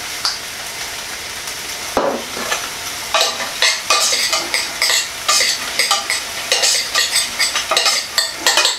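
Rice being stirred in a metal saucepan on the hob, over a steady sizzle from the pan. From about three seconds in, quick repeated scraping strokes against the pan, a few a second.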